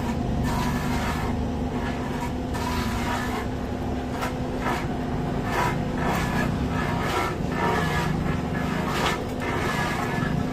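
Usha stationary diesel engine with a 102 mm bore, running steadily with a constant hum and repeated short knocks.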